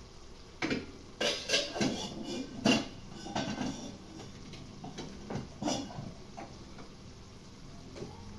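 Dishes and kitchen utensils knocking and clinking against each other in a quick irregular series. The loudest knock comes near the middle, and the sounds thin out to a few faint ticks toward the end.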